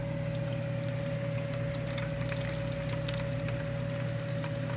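Chunks of meat sizzling and crackling in hot oil in a frying pan, with many short sharp pops scattered through. Under it runs a steady hum with a constant tone.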